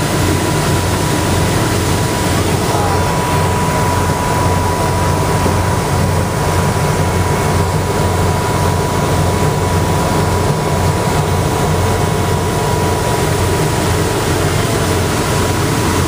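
Motorboat running at cruising speed: a steady low engine drone under a rush of wind and water noise, with a thin steady whine.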